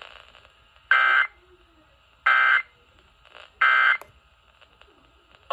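Emergency Alert System end-of-message data bursts: three short, identical bursts of screechy two-tone digital warble, about a second apart, closing the Amber Alert broadcast.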